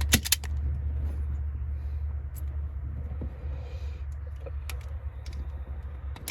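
Self-adjusting wire strippers clicking as they are squeezed to grip and pull the insulation off a wire: a quick cluster of sharp clicks at the start, then a few single clicks, over a steady low rumble.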